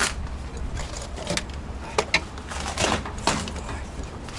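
Irregular knocks and clanks of hand tools and metal parts as the interior of a VAZ-2101 is taken apart, about six sharp hits over a low steady rumble.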